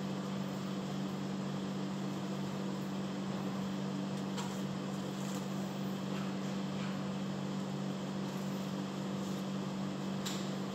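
Steady low machine hum of running kitchen equipment, with a few faint light clicks of handling.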